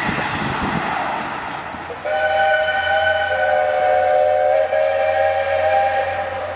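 Steam locomotive whistle: the 4-8-2's chime sounds a long, loud chord of several notes, starting suddenly about two seconds in and held for over four seconds with a brief dip partway. Before it, a steady rumble of the train running.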